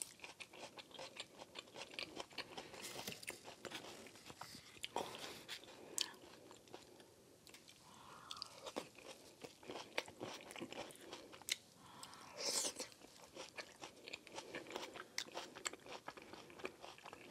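Close-miked chewing and biting of a baked whole onion: soft, wet crunches and small mouth clicks, with the onion's slightly crunchy layers breaking between the teeth.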